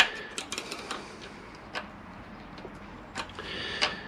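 Small screwdriver and pick scraping and clicking against the inside of a brake caliper piston held in a vise, as they lever at the spring that holds the piston's centre and outer parts together. Sharp metal clicks several times, with a short scrape carrying a thin squeal a little after three seconds in.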